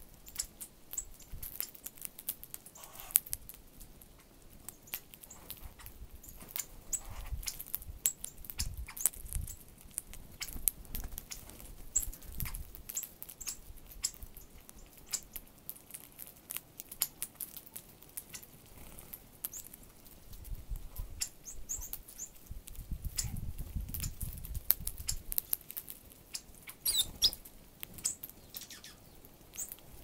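Small birds pecking and hopping on seed close by: rapid, irregular clicks and taps of beaks and feet in the seed, with some soft low thumps, and a few short high chirps near the end.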